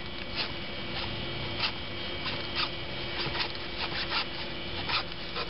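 Knife cutting into a date palm's spathe, sounding as irregular short scraping strokes, a bit more than one a second.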